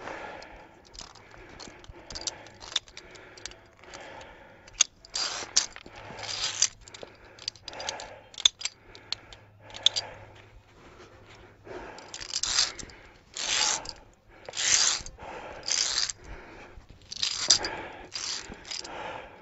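Footsteps scraping and crunching on rock and grit, with metallic clinks of via ferrata carabiners on their lanyard and on the steel safety cable. A carabiner is clipped onto the cable near the end.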